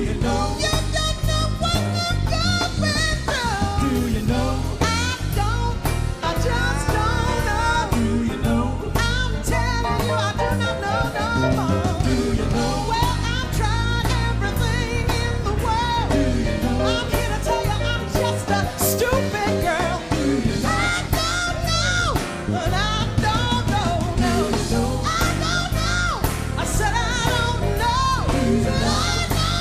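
Live jazz jam: a woman singing wordless, improvised vocal runs that slide up and down, over a band with bass and drums.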